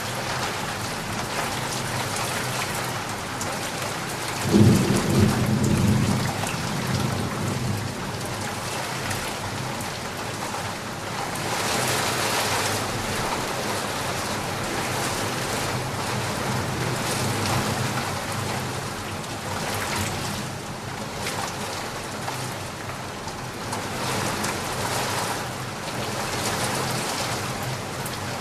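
Steady rain, with a low rumble of thunder about four and a half seconds in that lasts a second or two and is the loudest moment; the rain swells a little now and then.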